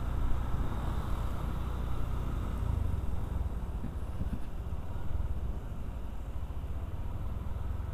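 A motorcycle being ridden along a road, its engine running steadily under a low rumble of wind and road noise.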